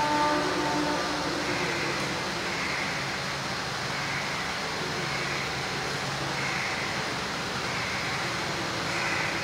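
Steady background noise with a faint low hum, unchanging throughout.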